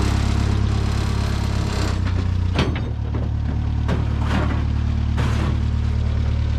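Forklift engine running steadily while it lifts a heavy axle on chains, with several sharp metallic clanks from the steel chains and axle.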